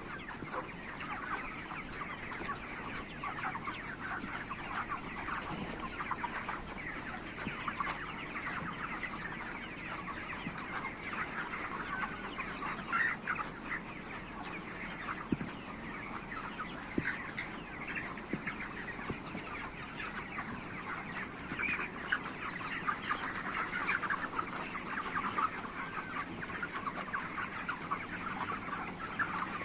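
A large flock of 35-day-old farm chickens clucking and calling continuously, many short overlapping calls blending into one steady chorus.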